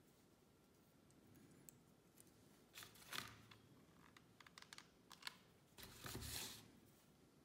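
Faint handling sounds of a plastic hot glue gun: it is picked up with a rustle and knock about three seconds in, a few light clicks follow as it is used on a small cardboard piece, and it is put down on the wooden table with a longer scrape and knock near the end.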